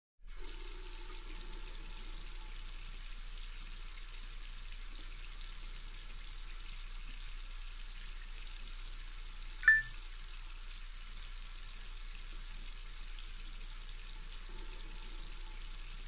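Water from a bathroom tap running steadily into a sink basin, with hands washing under the stream. About ten seconds in comes one brief, sharp ping, louder than the water.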